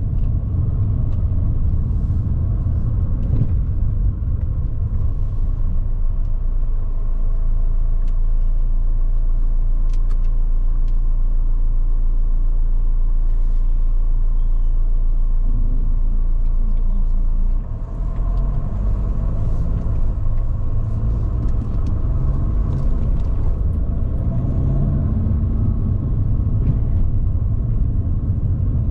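Steady low rumble of engine and road noise inside a moving Jeep Renegade diesel's cabin. The rumble dips briefly about two-thirds of the way through and is rougher afterwards.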